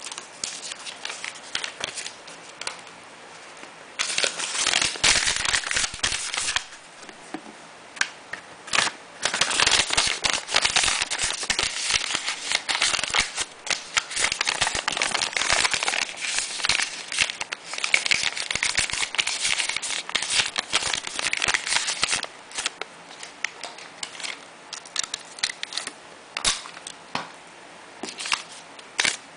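Crinkling and rustling of a small printed packaging bag as it is handled and folded around a bar of soap, loudest in a short burst a few seconds in and then a long stretch through the middle, with sparser crackles near the start and end.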